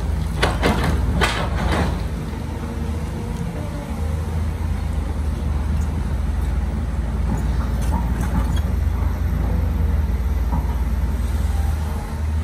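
Heavy diesel construction machinery running steadily with a deep drone. Several sharp knocks and rattles sound in the first two seconds, with a few fainter ones later.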